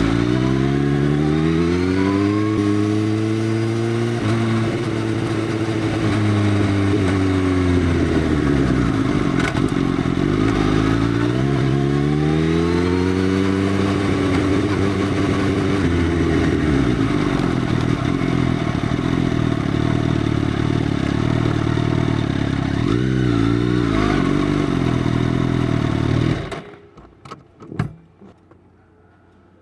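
Motorcycle engine with an Arrow full exhaust system, its dB killer removed, revved up and back down twice in slow sweeps. It settles to a steady idle with a brief blip, then is switched off near the end, leaving a few faint clicks.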